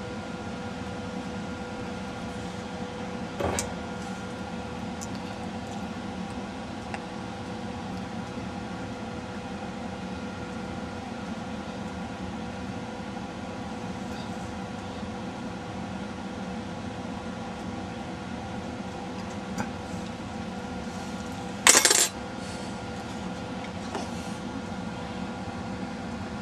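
A steady hum, with a light tap about three and a half seconds in and a short, bright metallic clink about 22 seconds in, from metal hand tools being handled while a surface-mount capacitor is placed and soldered by hand.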